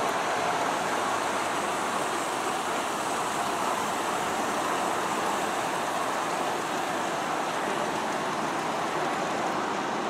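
G-scale model freight train rolling along garden-railway track: a steady, even noise of many cars' wheels running on the rails.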